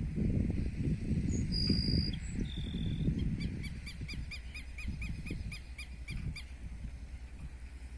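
A chama-chuva (tico-tico-do-campo) singing: two high thin whistled notes, then a long trill of evenly repeated notes, about five a second, that stops abruptly. Low rumbling noise runs underneath, loudest at the start and fading.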